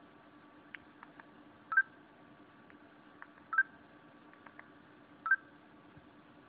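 Key tones from a SciPhone KA08 phone: three short electronic beeps, each a blend of two tones, about 1.7 seconds apart, with fainter clicks between them.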